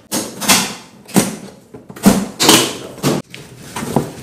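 Packing tape being pulled off its roll in short, noisy strips, about seven pulls in quick succession, while taping a cardboard box shut.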